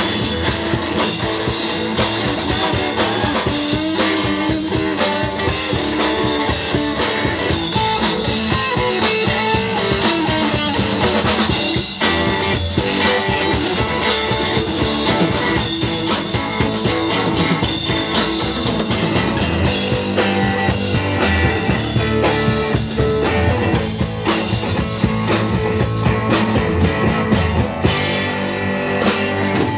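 Live rock band playing an instrumental passage: electric guitars over bass guitar and drum kit.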